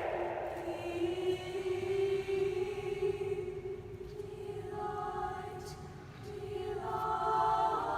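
A choir singing long held notes, a low note sustained throughout, with higher voices coming in about five seconds in and again near the end.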